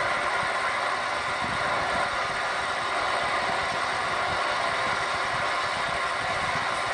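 Shortwave receiver's speaker giving out the steady, unbroken buzz of an over-the-horizon radar signal on the shortwave band.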